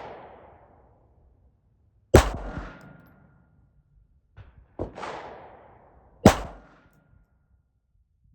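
Suppressed Ruger Mark IV Hunter .22 LR pistol firing standard-velocity rounds: single shots about two seconds apart, each a sharp crack followed by a short echo.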